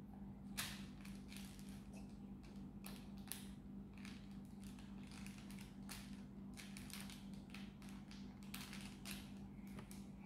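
Wax crayon scratching across a sheet of paper in a run of short, irregular strokes as a picture is coloured in. The scratching is faint, over a steady low hum.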